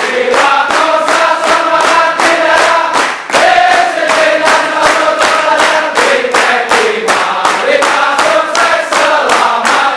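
A large group of men singing together in long held notes, with steady rhythmic hand-clapping about three times a second.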